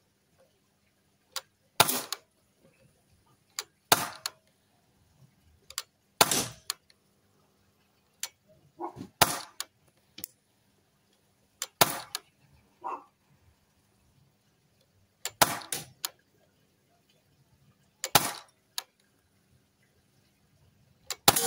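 Custom-built 4.5 mm CO2 BB rifle firing single shots, about eight sharp pops two to three seconds apart, with fainter clicks between them.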